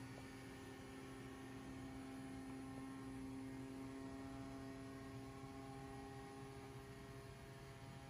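Budget robot vacuum cleaner running, its motor giving a faint, steady hum with several pitched tones.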